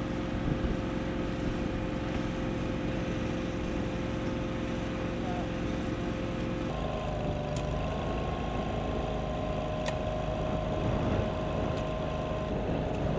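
A small engine running steadily, its pitch stepping up slightly about seven seconds in, with a few light metallic clicks.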